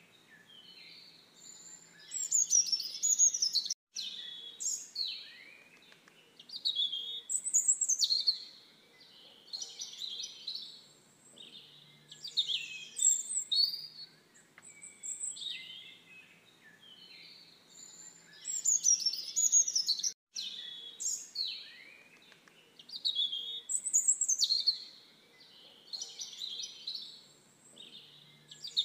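Songbirds chirping and twittering in quick, high phrases, one burst after another every second or two; the same sequence of calls comes round again about every 16 seconds, like a looped birdsong recording.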